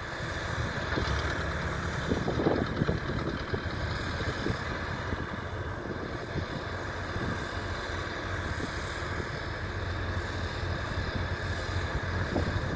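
Diesel engines of an excavator and small crawler bulldozers running steadily in a low rumble, with scattered faint knocks and clanks.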